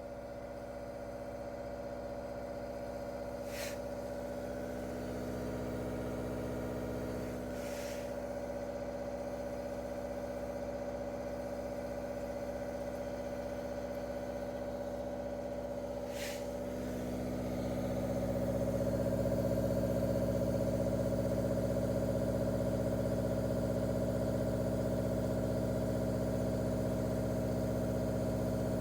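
Waterdrop G3P800 reverse osmosis filter's booster pump running with a steady hum, stepping up louder about 17 seconds in. Three short clicks sound over it during the first half.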